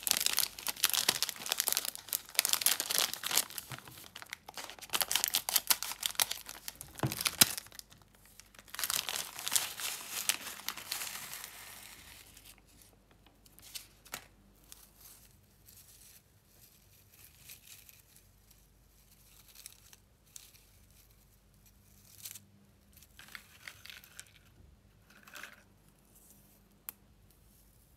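Metallized plastic Glico snack wrapper crinkling and tearing open in dense, loud crackles for the first twelve seconds or so. After that there are only scattered faint taps and rustles as the thin breadsticks are handled on a plastic plate.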